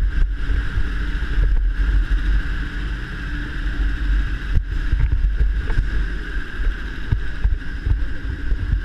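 Several go-kart engines idling together: a steady low rumble with a constant high whine above it.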